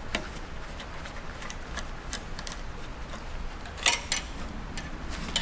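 Small metallic clicks and clinks of hand tools and engine parts while a coolant hose is taken off the engine, with a sharper clink about four seconds in and another near the end.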